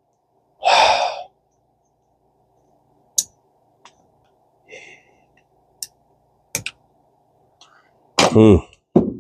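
A breathy sigh about half a second in, then a handful of sharp, light clicks and taps as the small metal parts of a Daiwa 1600C spinning reel are handled, and a short mumbled vocal sound near the end.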